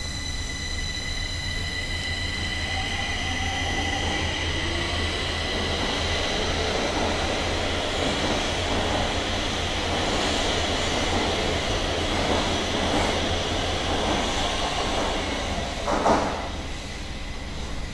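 Stockholm Metro C6 electric train running on the rails, its noise building over the first several seconds as a faint whine rises in pitch. A short thump comes about sixteen seconds in.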